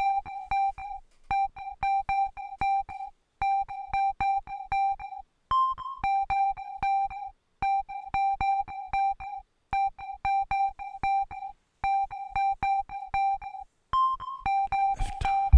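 Electronic music intro: a synthesizer keyboard plays short, rapid repeated notes on one pitch in phrases about two seconds apart, with a higher note opening some phrases. Near the end a noisy swell rises and a deep bass comes in.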